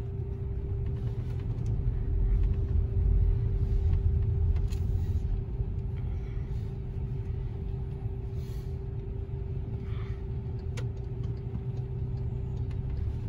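Car interior noise from a standing car: a low steady rumble with a constant hum, while cars pass by outside on the wet street.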